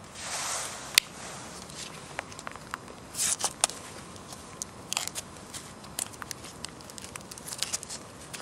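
Hands handling a plastic food pouch and a knife, making rustling and crinkling with scattered small clicks. There is one sharp click about a second in, and louder crinkling bursts a little after three seconds and again at about five seconds.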